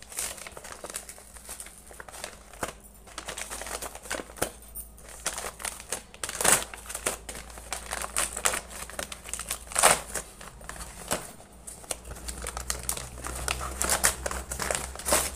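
Brown paper mailer bag being torn open and crumpled by hand: irregular crinkling and rustling, with louder crackles about six and ten seconds in.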